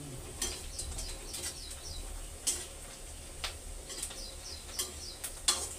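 Small bird chirping in quick runs of short, high, falling notes, with a few sharp clicks in between and a low background rumble.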